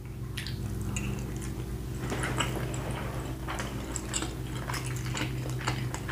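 A person chewing a mouthful of cheesy macaroni close to the microphone: soft, wet mouth clicks and squishes scattered throughout, over a steady low hum.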